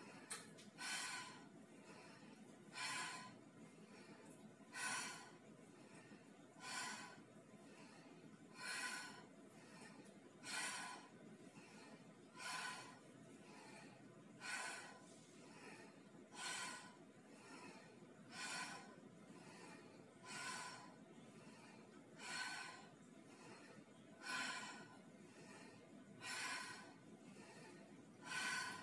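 A woman's breathing during squats: a loud breath about every two seconds, in an even rhythm, over faint room hiss.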